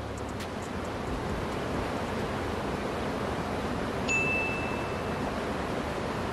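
Steady outdoor background hiss, with a single short, high bell-like ding about four seconds in.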